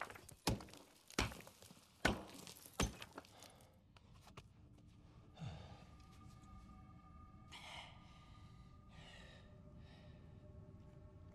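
Four heavy blows against rock, breaking a hole through a tunnel wall, in the first three seconds. Then a low steady hum, with a person breathing out heavily three times.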